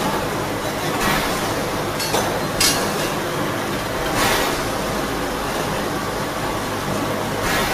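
D53K radial-axial ring rolling mill running as it rolls a red-hot steel ring: a steady mechanical drone with a low hum, broken by several brief harsh hissing-scraping bursts, the clearest about two and a half and four seconds in.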